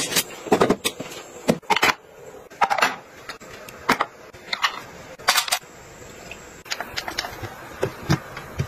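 Irregular sharp clicks and knocks, about a dozen, of hard plastic wall-mounted bathroom racks and holders being handled and items set into them.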